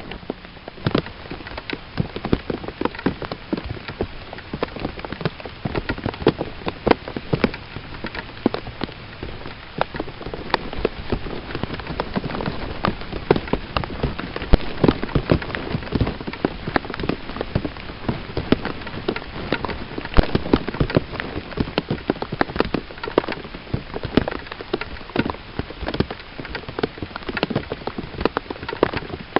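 Rain falling, with many sharp, irregular drop taps.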